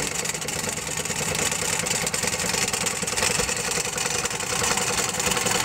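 Wilesco toy live-steam engine running steadily with a fast, even mechanical rhythm, driving a belt-powered wood-cutter model.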